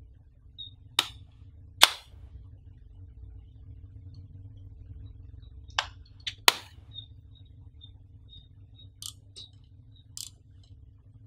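Sharp plastic clicks and snaps from a Sony HXR-MC88 camcorder being handled, its parts worked by hand: about eight separate clicks, two sharp ones near the start, a quick cluster of three in the middle, and lighter ones near the end.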